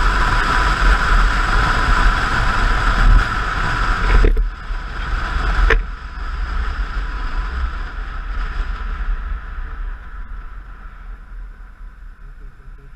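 Motorcycle riding at highway speed: wind rush over the microphone and a low engine and tyre rumble. Two sharp clicks come about four and six seconds in. After them the rush and rumble fade steadily as the bike slows for a turn.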